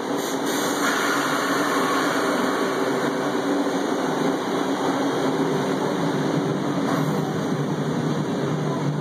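MBTA Red Line subway train pulling out of the station: a steady rumble and rush of running noise.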